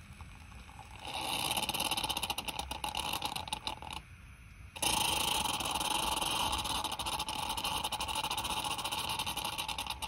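Bellman CX25-P stovetop espresso maker releasing pressurised coffee and steam through its coffee valve into a cup: a loud hiss with crackling sputters. It stops for a moment about four seconds in, then resumes as a steady hiss and cuts off abruptly at the end.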